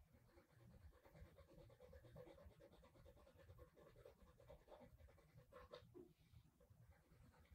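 Faint, irregular scratching of a graphite pencil shading on paper.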